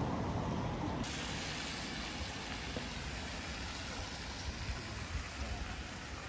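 A minivan passing close, its engine and tyres rumbling. About a second in, the sound cuts to the steady hiss of a rain-wet street.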